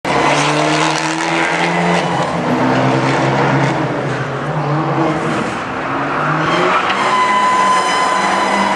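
Fiat 500 engine revving up and down as the car is driven hard. A steady high-pitched squeal joins about seven seconds in.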